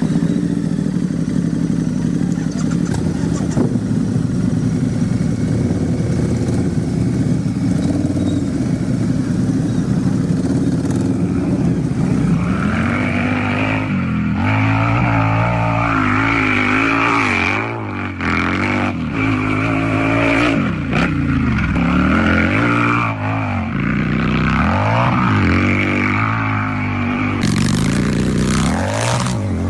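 Motorcycle engine running at a steady idle, then from about twelve seconds in revved over and over, the pitch rising and falling with each blip of the throttle.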